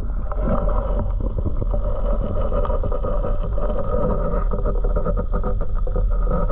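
Muffled underwater sound from a camera held just below the water surface: a steady low rumble and rush of moving water, with many small crackles throughout.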